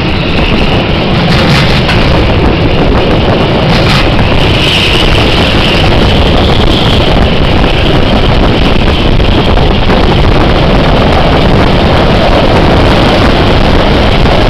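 Car-carrying train moving along the track, heard from an open wagon: a steady rumble with wind buffeting the microphone.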